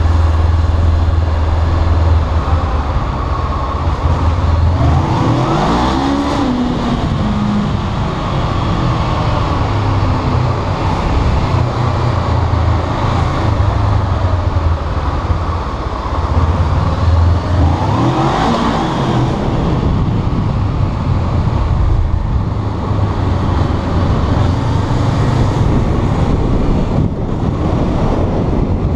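Honda CBR500R's two-cylinder 500 cc engine running steadily as the motorcycle rides along at low speed. Twice, about six and eighteen seconds in, the sound sweeps up and back down in tone.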